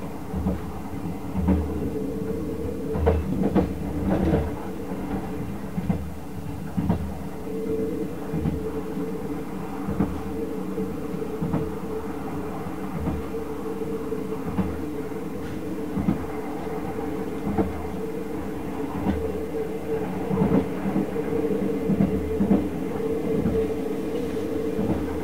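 Running noise inside a 24-series sleeper coach moving at speed: a steady hum and rumble, with repeated clacks and thumps of the wheels over rail joints.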